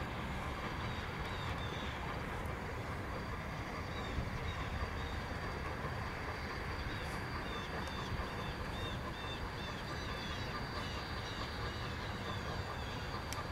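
Outdoor ambience: a steady low rumble, with birds chirping repeatedly in short, high calls.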